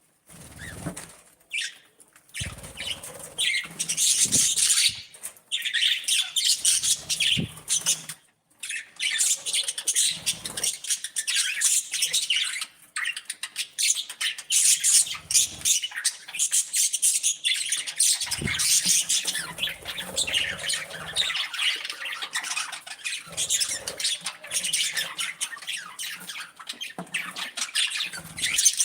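Pet budgerigars chattering and squawking continuously in rapid, high-pitched calls, briefly pausing about eight seconds in.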